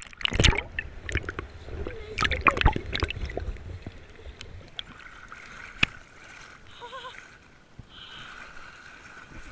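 Water splashing and sloshing around a camera held at the surface beside a swimming dog, with gurgling as the camera goes under. It is busiest in the first three seconds and grows quieter and muffled after that.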